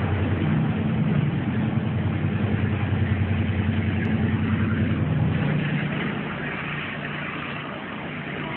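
A vehicle engine running steadily with a low, fast-pulsing drone. Its note shifts lower and gets a little quieter about five and a half seconds in.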